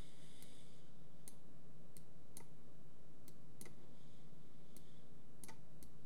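About eight sharp single clicks at uneven intervals, from the computer's mouse and keys as the user works, over a faint steady low hum.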